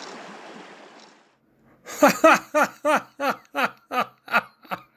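Rushing creek water fades out in the first second, then a person laughs heartily: a run of about ten 'ha' pulses, each falling in pitch, that tapers off near the end.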